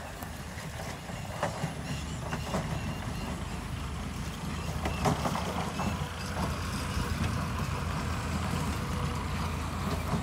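A steady low engine hum that grows gradually louder, with scattered light clicks over it.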